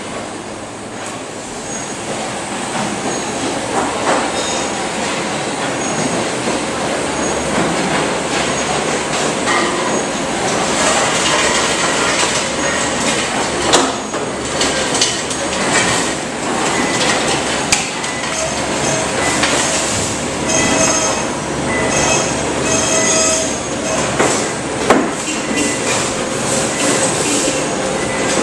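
Oyster-processing plant machinery running: a loud, steady mechanical din with frequent clanks and knocks and brief high squeals. It grows louder a couple of seconds in.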